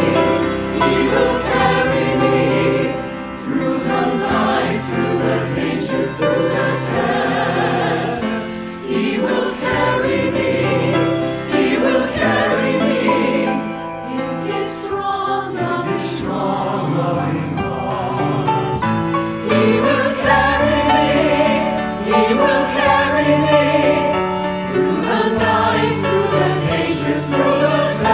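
Church choir of men's and women's voices singing a worship anthem in parts, with accompaniment.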